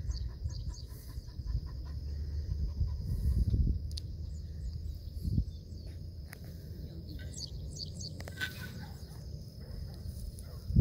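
Wind buffeting the microphone with a steady low rumble, while small birds chirp in short high calls, mostly in the second half, over a faint steady high insect drone.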